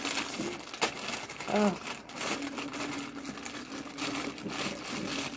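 Plastic wrapping on a pack of frozen toaster pastries crinkling and rustling as it is handled and opened, with a brief vocal sound about a second and a half in.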